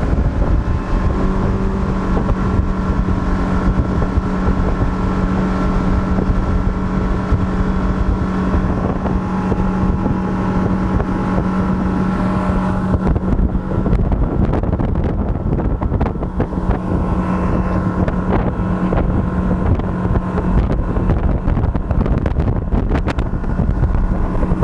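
Suzuki 115 outboard motor running steadily at speed, driving the boat fast across the water, with wind noise on the microphone. The wind hiss eases about halfway through while the engine note holds steady.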